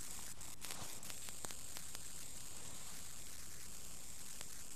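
Steady hiss of background noise from the broadcast recording, with a low hum and a few faint clicks.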